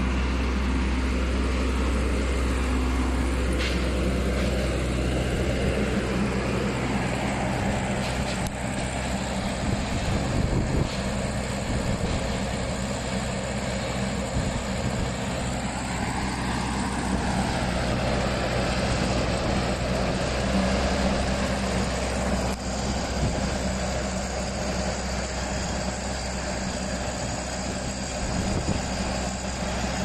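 Wheeled skid steer loader's engine running steadily as the machine moves about, its pitch rising and falling once about sixteen seconds in.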